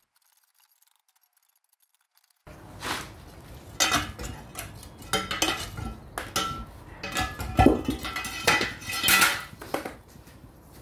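After about two seconds of silence, a steel crowbar clanks and scrapes against an iron cannonball and the cast-iron carronade barrel as the ball is levered down the bore and out of the muzzle. It comes as a quick run of sharp metallic knocks with a ringing note.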